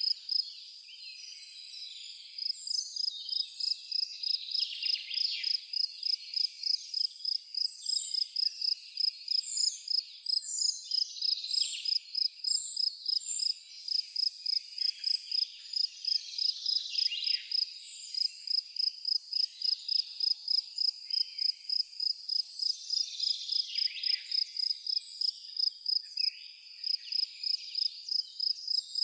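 Crickets chirping in a steady, even rhythm of a few chirps a second, with a short break about a second in. Birds give short high calls over them.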